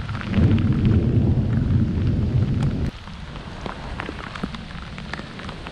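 Heavy rain pouring down. For the first three seconds a loud low rumble lies under it; then it cuts suddenly to a quieter, steady rain hiss with scattered drop ticks.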